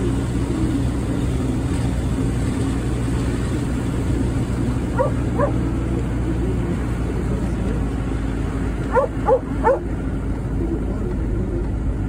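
Steady engine and road noise of a vehicle driving along, heard from inside the cab. A dog yips twice about five seconds in and three more times about nine seconds in, short sharp yelps.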